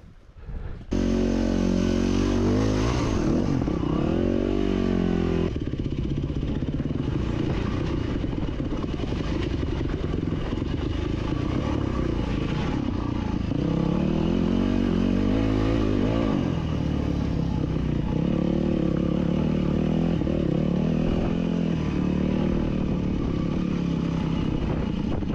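Yamaha dirt bike engine running under load, its pitch rising and falling with the throttle as it rides over rock. The sound starts abruptly about a second in and changes suddenly about five seconds in.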